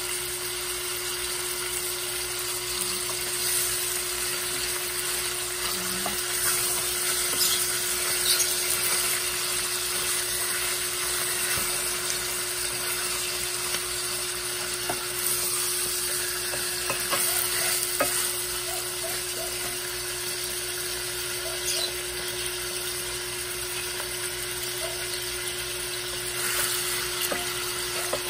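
Chicken drumsticks sizzling steadily as they fry in oil in a stainless steel pot. From partway through they are stirred with a wooden spatula, which gives scattered knocks and scrapes against the pot.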